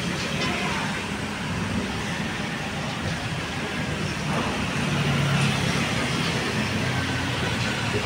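Road traffic: vehicle engines running and passing close over steady road noise, with the engine hum a little louder about five seconds in.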